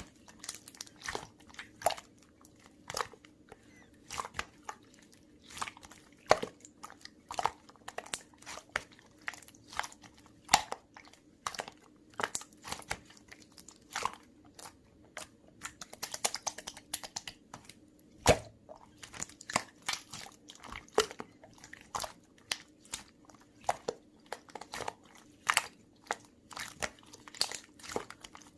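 Close crisp crunching and chewing, like someone biting into and eating crunchy food. It comes as irregular sharp crunches several times a second, with a few louder bites, over a faint steady hum.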